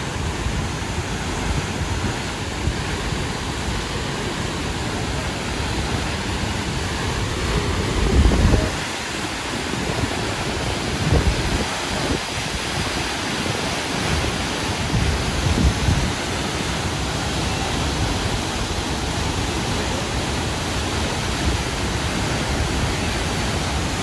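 Large waterfall in flood, a heavy muddy torrent crashing into its plunge pool: a loud, steady rush of falling water, with a few brief low rumbles about eight, eleven and fifteen seconds in.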